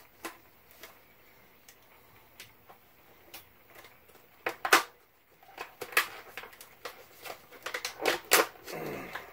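Scattered sharp clicks and light rattles of hand tools being handled: a plastic driver-bit case and a small socket ratchet with bits. The loudest clicks come about halfway through and again near the end.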